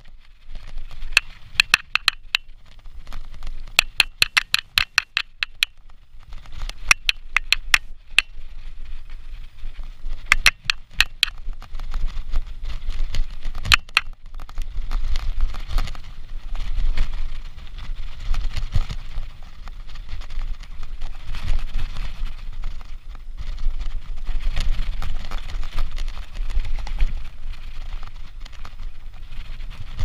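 Mountain bike ridden fast along a dirt trail. For the first ten seconds or so there are bursts of rapid, evenly spaced clicking from the bike. After that comes a steady low rumble of tyres and wind, with rattles and knocks from the bumpy ground.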